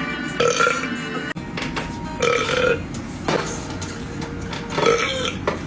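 A man belching about three times, a couple of seconds apart, over background music.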